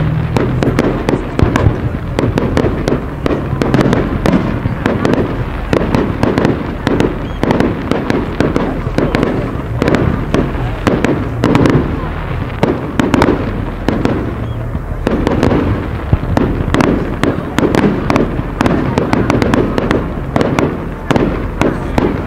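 Aerial fireworks display, with shells of up to 3-inch calibre: a rapid, unbroken stream of loud bangs and crackling reports, many bursts overlapping.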